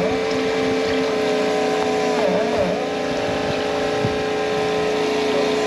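A motor running steadily, its pitch dipping briefly and recovering near the start and again about two and a half seconds in.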